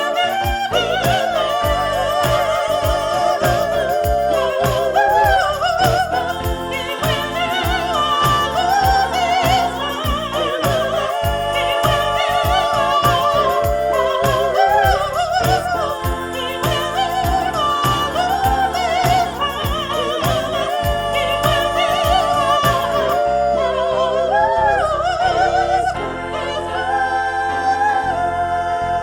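Music with a singer's voice wavering in vibrato over a steady beat; about three-quarters of the way through, the drums and cymbals drop out and the music turns softer.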